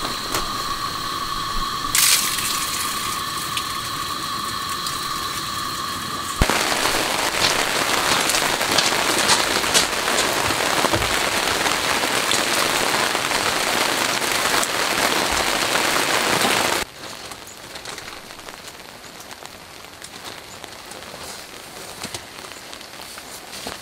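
Rain pattering steadily with many small crackling drops. It is heavier and louder in the middle and drops off abruptly to a lighter patter. A steady high tone runs over it for the first few seconds.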